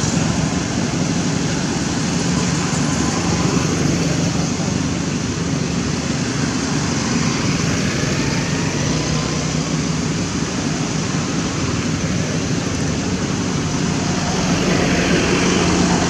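Steady motor vehicle engine hum with road traffic noise, unbroken throughout.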